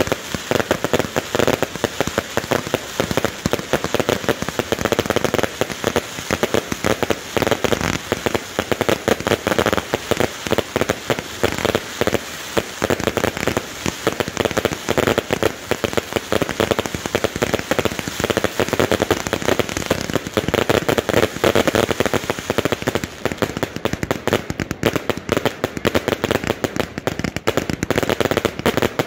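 Firework cakes firing, a dense, continuous crackle of rapid bangs and pops with no pause.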